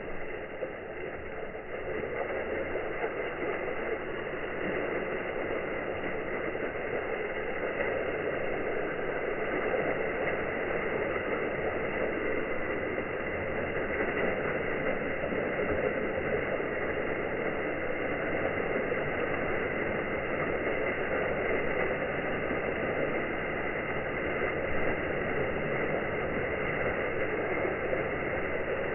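Water pouring over a garden pond waterfall in a steady rush, a little louder from about two seconds in.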